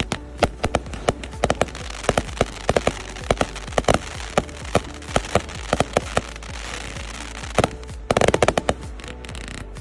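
A 396-shot firework cake with 0.8-inch tubes firing in rapid succession: sharp launch and burst reports, about three a second, with a dense rapid flurry of them near the end.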